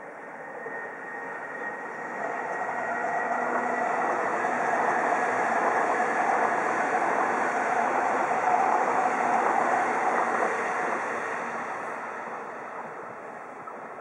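JR electric commuter train passing on the tracks below, its wheel-on-rail rumble swelling to a peak about halfway through and fading away near the end.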